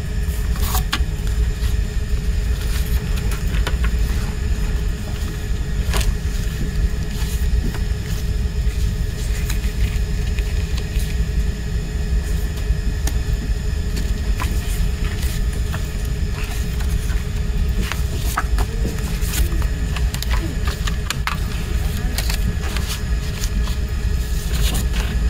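Steady low rumble throughout, with scattered light clicks and taps as a plastic CD jewel case, a picture card and a paper booklet are handled and set down.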